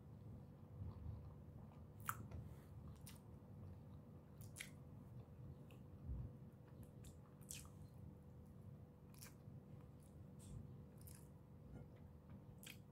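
A person chewing a mouthful of chicken tocino and rice, faint wet mouth clicks and lip smacks scattered irregularly through, over a steady faint hum.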